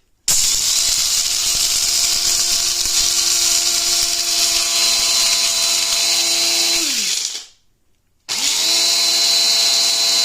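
Electric coffee grinder grinding coffee beans in two runs. The motor runs loud and steady for about seven seconds, winds down with a falling pitch, then starts again about a second later.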